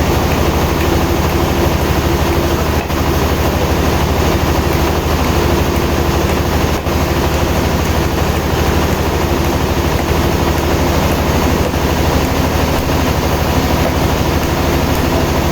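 Sawmill machinery running steadily and loudly: a low engine hum under dense mechanical noise, with two brief dips a few seconds apart.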